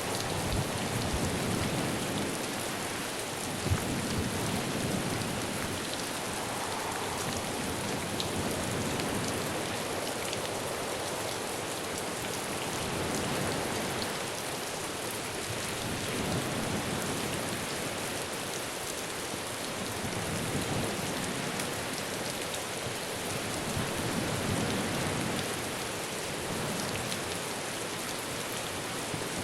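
Heavy rain falling steadily in a windy storm, with gusts swelling and easing every few seconds, and one short sharp knock about four seconds in.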